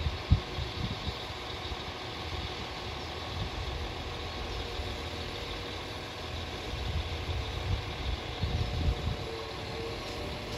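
Class 195 diesel multiple unit idling steadily while standing at the platform. A single short thump comes just after the start.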